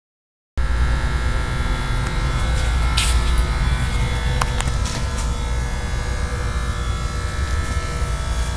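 NEMA 23 stepper motors on a plasma table gantry, driven by a gShield, giving a steady electric buzz with several high whining tones and a low rumble beneath. A few short clicks come about three, four and a half, and five seconds in.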